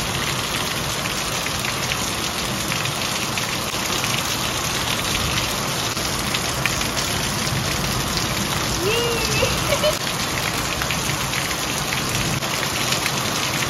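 Heavy rain falling steadily on a grassy garden and potted plants.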